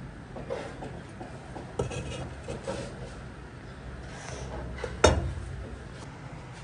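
Light scrapes, taps and clinks of a cleaver and fingers pushing chopped chili off a plastic cutting board into a ceramic bowl, then one loud knock about five seconds in as the cleaver is laid flat on the board.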